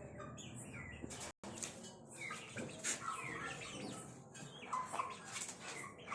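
Aseel chicks peeping with many short chirps, mixed with chicken calls. The sound cuts out for an instant a little over a second in.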